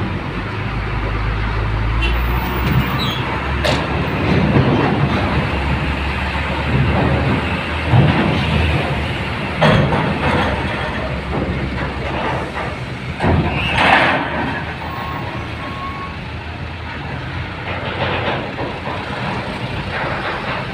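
Loaded cargo trucks' diesel engines running as the trucks drive up a ferry's steel loading ramp, with a low rumble and several loud clanks as they cross the steel ramp plates.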